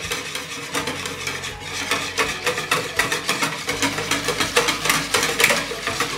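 Wire balloon whisk beating chickpea flour into water in a bowl: rapid, rhythmic clicking of the wires against the bowl with a wet swish. The flour is being whisked in gradually so that the batter stays free of lumps.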